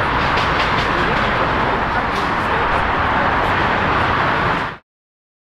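Boeing 767 freighter's twin jet engines running loud and steady as it rolls out on the runway just after touchdown, with a steady rushing noise. The sound cuts off suddenly near the end.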